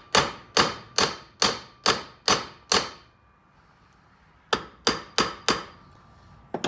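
Hammer blows on a short piece of copper tubing, flattening its end to make a cable lug: a steady run of about seven sharp, ringing strikes, a pause, four quicker strikes, then one more near the end.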